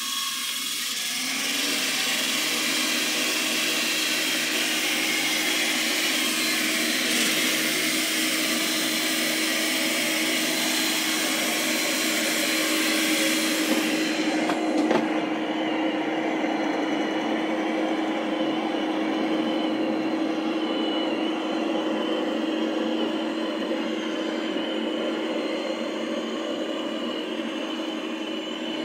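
iRobot Roomba 705 robot vacuum running at its maximum manually set suction level, with a steady motor tone. About halfway in its high hiss drops away abruptly, but the motor tone does not rise: on carpet the Carpet Boost does not trigger and suction stays at the set level.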